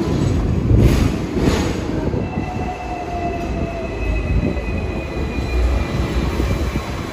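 Hong Kong double-decker tram running along its street track, heard from on board: a steady rumble with two knocks about a second in, then a thin wheel squeal that sets in about two seconds in and slowly fades.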